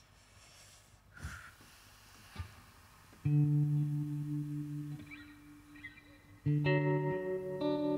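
Clean electric guitar, Stratocaster-style. Two soft clicks in the first few seconds, then the guitar is struck about three seconds in and left ringing. It is struck again about six and a half seconds in, with higher notes added.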